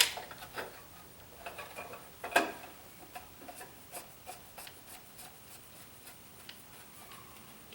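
Socket ratchet on extensions turning the plastic oil filter housing cap down, its pawl clicking slowly and evenly, about three clicks a second and fading toward the end, with a single louder knock of the tool about two and a half seconds in.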